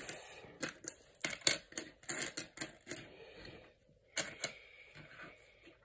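Coins, mostly copper pennies, clicking and scraping against each other and a granite countertop as they are slid aside by hand and counted. The clicks come thick for the first three seconds, then a few more about four seconds in.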